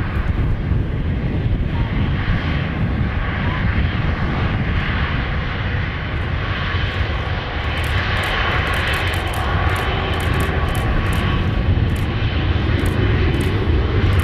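Jet aircraft engines running close by: a steady roar over a deep rumble, getting brighter and harsher about eight seconds in.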